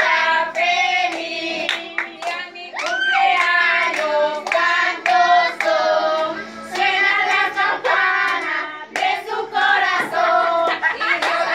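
A group of women and children singing a birthday song together while clapping along with the beat.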